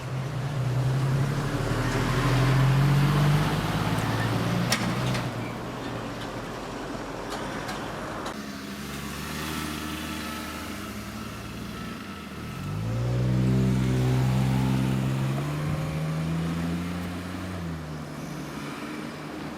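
Motor vehicle engines close by. A car engine is loud in the first several seconds. About two-thirds of the way in, another engine dips and then climbs steadily in pitch as it accelerates, fading near the end.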